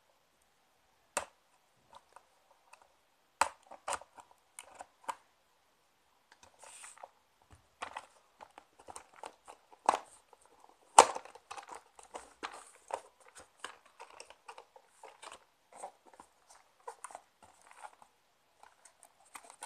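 Cardboard retail box and clear plastic tray being opened by hand: stickers peeled off, with crinkling and crackling and a few sharp snaps, the loudest about ten and eleven seconds in.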